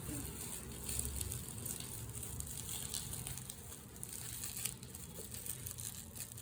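Faint crinkling and rustling of plastic bubble wrap being handled and dabbed with paint, over a low steady hum.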